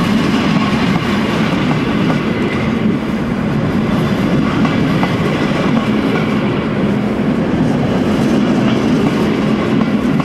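A train rolling along the track: a loud, steady rumble of wheels on rails.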